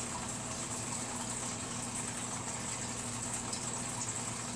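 Steady background hiss with a faint low electrical hum, even throughout, with no distinct events.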